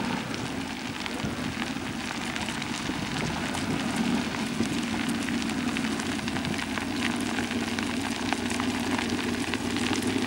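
A Formula Offroad car's engine running with a steady drone, overlaid by continuous crackling and pattering.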